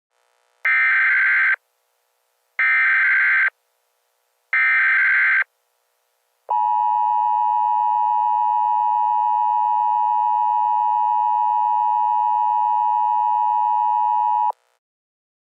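Emergency Alert System header: three short bursts of screeching digital data tones about a second apart, followed by the long steady EAS attention tone lasting about eight seconds, which cuts off abruptly.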